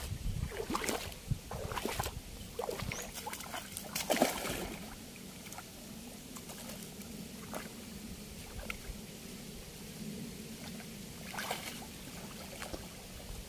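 Shallow river water splashing and sloshing as a cast net is hauled in by its line and someone wades in after it. The splashes come in irregular bursts, the loudest about four seconds in, then settle to a quieter lapping with another short splash near the end.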